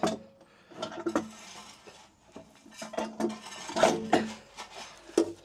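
A series of hard knocks and clatters as an EcoFlow PowerOcean battery module is lowered and seated onto its base, with the loudest knock about four seconds in.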